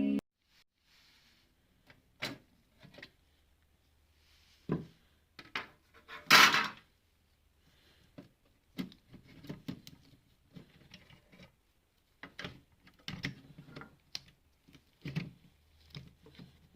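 Scattered clicks, knocks and rubbing from handling a car CD player unit and its wiring, with one louder, longer clatter about six seconds in.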